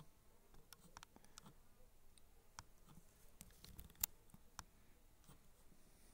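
Near silence with scattered faint clicks and taps from hands working the drone's remote controller, one sharper click about four seconds in.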